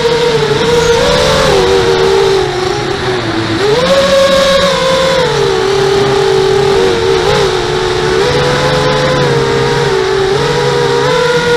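Electric motors and propellers of a 5-inch quadcopter whining in flight, the pitch shifting with throttle: it sags, rises sharply about four seconds in, then eases back down.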